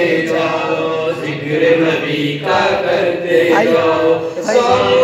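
Men chanting a devotional zikr refrain, with held, sung notes in phrases about two seconds long.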